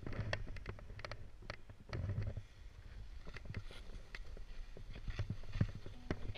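Wind rumbling on a helmet camera's microphone, with scattered scrapes and knocks as skis slide slowly over firm, steep snow.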